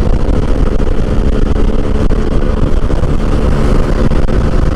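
Honda Click 150i scooter's single-cylinder engine running steadily at highway speed, about 100 km/h, under heavy wind and road rumble.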